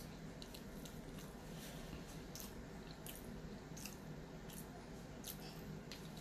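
A person chewing food close to the microphone: faint, wet mouth clicks and smacks at irregular intervals, roughly one every half second to second.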